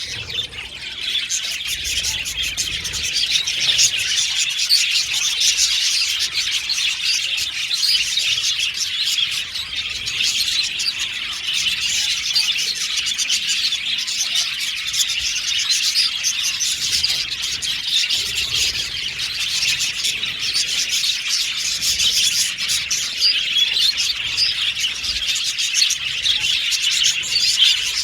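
A flock of budgerigars chattering and warbling together, a dense, unbroken wash of rapid high chirps and twitters from many birds at once.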